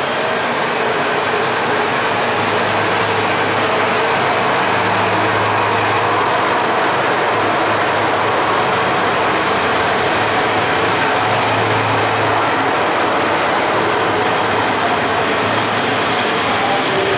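Diesel engine of a KiHa 125 series railcar running under power as the two-car train pulls out and rolls past, a steady engine sound with a faint low hum that grows a little louder midway.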